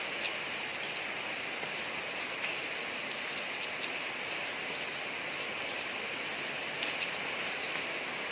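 Steady rain falling on a street, an even hiss with the scattered ticks of single drops, a couple of them a little louder about seven seconds in.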